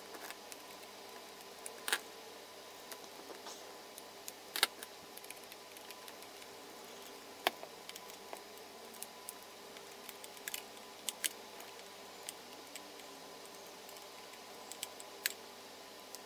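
Scattered light clicks and taps of needle-nose pliers and wire ends against a plastic socket housing as cable conductors are fed into its terminals, a few sharper than the rest, over a faint steady hum.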